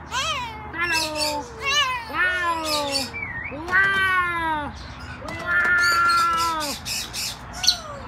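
Playful high-pitched vocal calls, the man's and the Goffin's cockatoo's. First comes a quick run of short calls sliding down in pitch, some of them wavering, then two longer drawn-out calls falling in pitch, the second lasting over a second.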